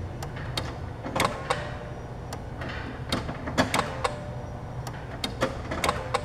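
Ignition key of a 2005 Ford Ranger being cycled on and off rapidly, about a dozen sharp, irregular clicks from the switch and relays. The key is cycled to prime the fuel pump and build fuel pressure, which bleeds off because the pump is not holding residual pressure.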